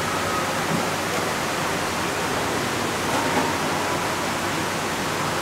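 A steady, even hiss of background noise with no distinct sounds standing out.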